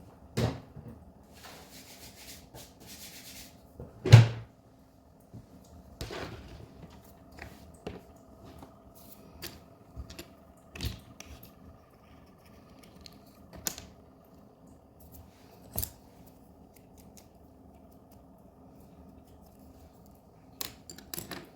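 Scattered light clicks and knocks of small diecast car parts and tools being handled and set down on a work surface while drilling debris is cleared away. The loudest knock comes about four seconds in, and there is a brief hiss just before it.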